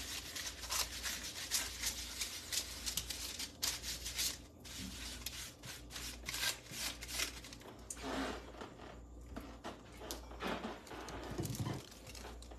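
Fingers rubbing olive oil over a flatbread lying on paper, a dry scratchy rustling made of many short strokes. It is busiest in the first two-thirds and thins out near the end.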